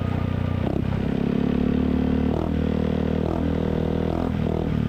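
Yamaha XMAX 250 scooter's single-cylinder engine running through a Villan MV1 stainless aftermarket exhaust with the dB killer removed, at low riding speed. The engine note shifts up and down in pitch about halfway through.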